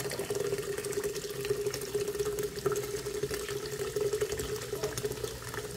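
Carbonated peach soda poured from two cans into a metal ice cream maker canister: a steady splashing pour that holds one tone and stops near the end.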